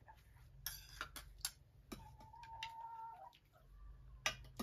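A hen gives one drawn-out call about two seconds in, among sharp clinks of spoons against plates.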